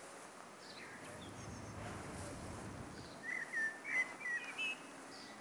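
Songbird singing: a quick run of short, chirping whistled notes a little past the middle, with a few fainter notes before it, over a faint low rumble.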